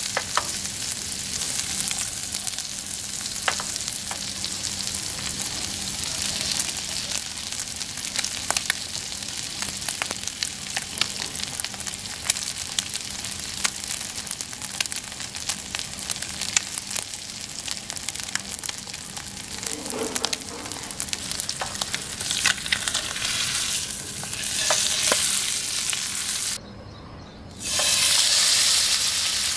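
Seer fish steak shallow-frying in hot oil in a pan: steady sizzling with scattered crackles and pops. Near the end the sound drops out briefly, then a fresh masala-coated piece goes into fresh oil and the sizzle comes back louder.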